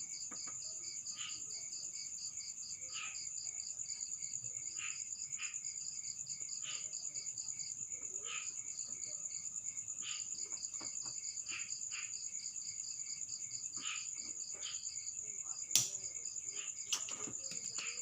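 Crickets chirping in a steady, fast high trill throughout, with scattered light ticks and two sharper clicks near the end.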